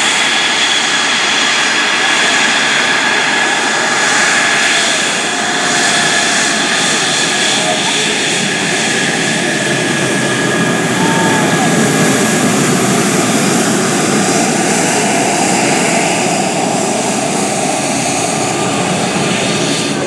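F-16 Fighting Falcon's single jet engine running at taxi power: a steady high whine over a broad rushing roar.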